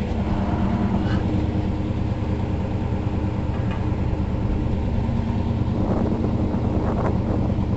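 An engine idling with a steady, even low hum, with a few faint scrapes near the end.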